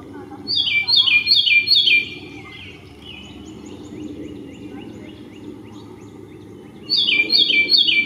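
Carolina wren singing: a loud song of about four quick repeated phrases, heard twice, once about half a second in and again near the end. Fainter songs of other birds carry on in between.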